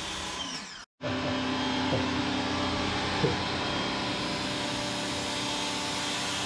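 Small Ryobi 1600 PSI electric pressure washer running with a steady motor-and-pump hum. It cuts out for a moment about a second in, then comes back a little louder.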